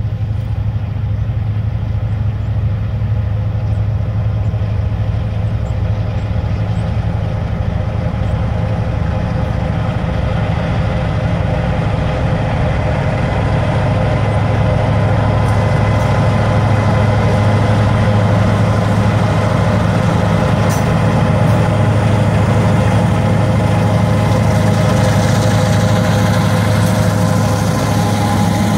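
An EMD GP9 and two six-axle diesel locomotives working under load at low speed, a steady, deep diesel rumble that grows louder in the second half as the units draw near.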